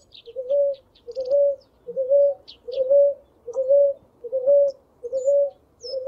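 Ruddy ground dove singing: a steady series of short, soft coos repeated at an even pace, a little more than one a second. Faint high chirps of small birds sound in the background.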